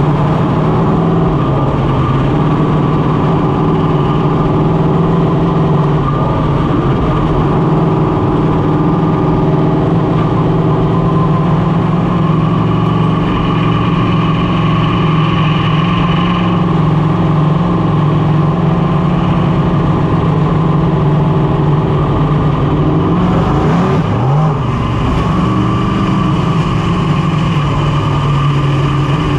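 Big-block V8 of a dirt modified running steadily at slow pace-lap speed behind the pace truck, heard loud from inside the cockpit. Near the end the engine note briefly drops off and then picks back up.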